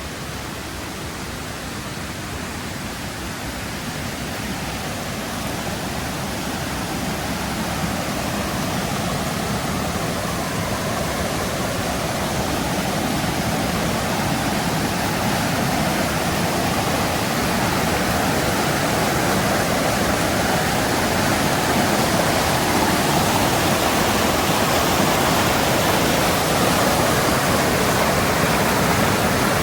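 Mountain river rushing over rocks, a steady dense roar of flowing water that grows gradually louder as the walk nears the river.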